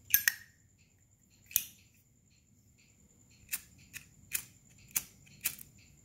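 Brass Zippo lighter's hinged lid clinking as it is flicked open and handled. There is a sharp double clink at the start, another clink about a second and a half in, then five quicker metal clicks in the last two and a half seconds.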